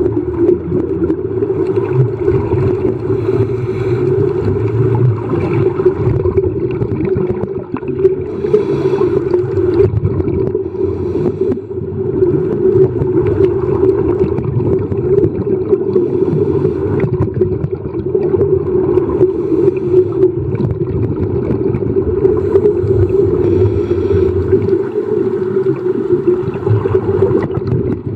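Underwater ambience picked up by a diving camera: a steady low hum over a rough rushing noise, with no clear breaks.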